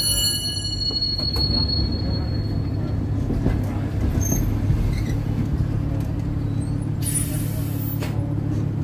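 Electric trolley car rolling along the track, a steady low running rumble of motors and wheels on rail; a high wheel squeal from the curve dies away right at the start. A brief hiss comes about seven seconds in.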